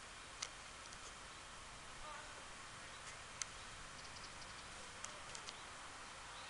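Faint forest ambience: a steady low hiss with a few short sharp clicks, one about half a second in, one near three and a half seconds and a cluster of three around five seconds, plus a faint short chirp about two seconds in.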